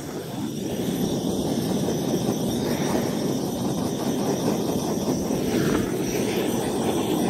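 Gas torch flame burning steadily, used to thaw a frozen brake valve on a trailer axle without burning its seals.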